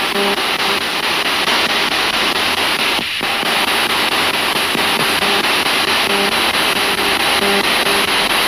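Spirit box radio scanner sweeping through stations: a steady hiss of static, chopped rapidly into short fragments with brief snatches of radio tones.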